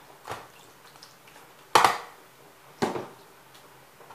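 Metal ladle knocking against a stainless steel tray three times while ladling meat sauce, each knock ringing briefly; the second, a little before the middle, is the loudest.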